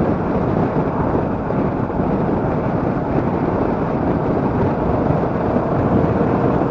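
Motorcycle riding at road speed: the Royal Enfield Meteor 350's single-cylinder engine running under steady wind rush over the microphone.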